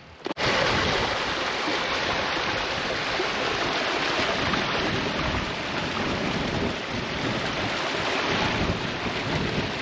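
Small moorland stream running and splashing down between boulders: a steady rush of water that starts abruptly about half a second in.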